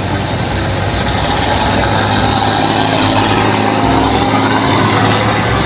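Heavy tank truck driving along a road, its engine running steadily with road and traffic noise.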